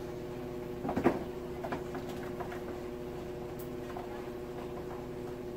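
Kitchen handling sounds: a short clatter of knocks about a second in, then a few lighter clicks, over a steady appliance hum.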